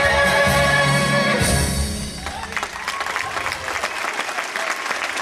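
The last held chord of a stage-musical number, with singing and orchestral backing, ends about two seconds in, and the audience breaks into applause.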